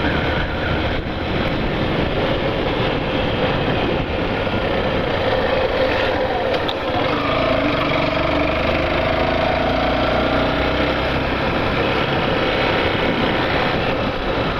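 Yamaha Factor 150 motorcycle's single-cylinder four-stroke engine running steadily while riding along a street, mixed with road and wind noise.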